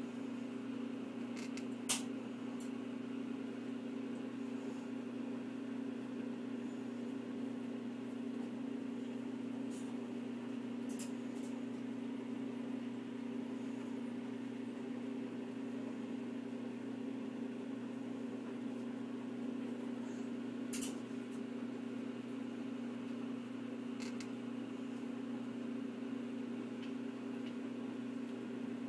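Steady low machine hum, with a few short sharp clicks over it, the loudest about two seconds in.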